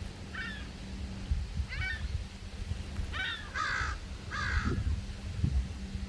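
A crow cawing, about five harsh caws spaced a second or so apart, the last two louder and fuller, over low wind rumble.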